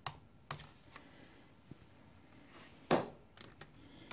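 A torque wrench and socket click and tap on the cylinder head nuts of a Yamaha TDR250 two-stroke, which are being tightened to 22 newton metres in sequence. A few light clicks come, with one sharper click about three seconds in.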